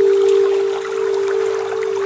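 A loud steady held tone, like a low synth drone, over a soft even wash of water with faint drip-like ticks.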